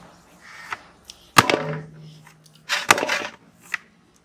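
A ball of donut dough slammed down onto a steel plate to knead it: three sharp slaps about a second and a half apart.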